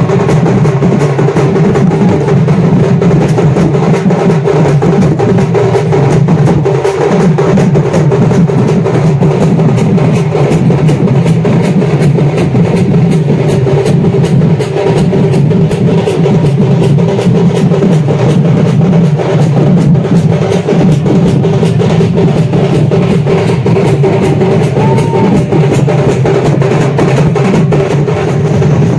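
A band of traditional drums and hand cymbals playing a fast, dense beat, loud and without a break.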